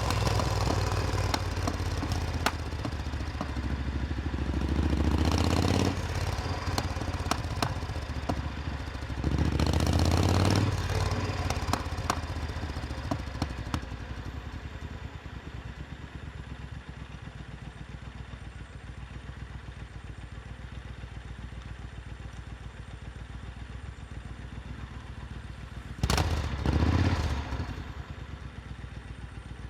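Supercharged Triumph Thunderbird Storm's parallel-twin engine running, rising louder in three brief surges, around five seconds in, around ten seconds in, and near the end, and settling to a lower, steady running sound in between.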